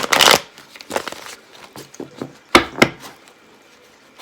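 Tarot cards being handled and shuffled: a few short papery rustles, the loudest at the start and another pair about two and a half seconds in.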